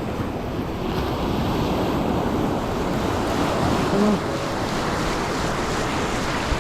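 Ocean surf washing on a beach, a steady rush of breaking waves that swells louder about a second in, with wind buffeting the microphone. A brief voiced sound, like a short exclamation, cuts in just past the middle.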